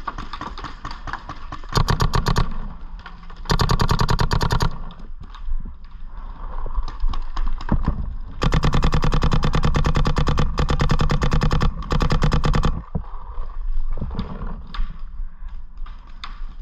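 Planet Eclipse GEO 4 electropneumatic paintball marker firing rapid strings of shots: a short burst about 2 seconds in, a second burst shortly after, then a long string of about three and a half seconds and one more short burst. Fainter scattered pops of other markers are heard in between.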